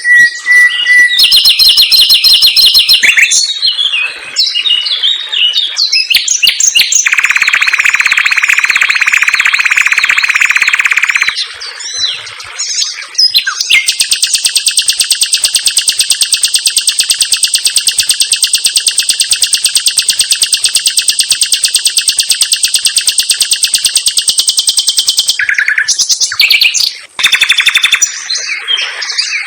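Common nightingale singing a varied song of whistles and rapid rattles. It includes a fast buzzy trill and, from about the middle on, a long run of very rapid repeated notes lasting about ten seconds.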